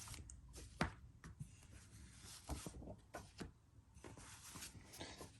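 Faint, sparse handling noise from comic books being sorted through: a few soft clicks and paper rustles over quiet room tone.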